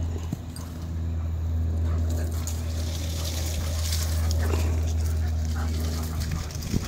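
A dog growling low and steadily through a play-fight, the growl breaking off near the end, with a few short yips over it.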